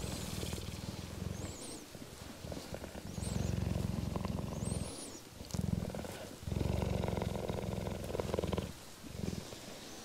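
Cheetah purring, a low buzzing in long bouts broken by short pauses, while cubs nurse from the mother cheetah.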